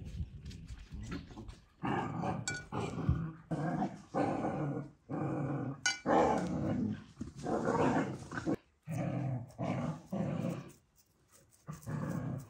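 An animal's voice calling again and again in short pitched bursts of half a second to a second, about ten of them with brief gaps, starting about two seconds in.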